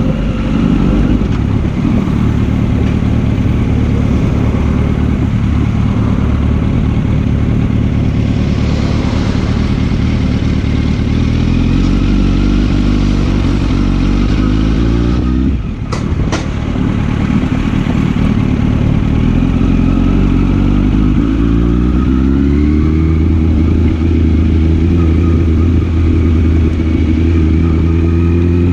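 Yamaha R1 sport bike's inline-four engine running under way, its note climbing in pitch twice as the bike accelerates. About halfway through there is a brief dip with two sharp clicks.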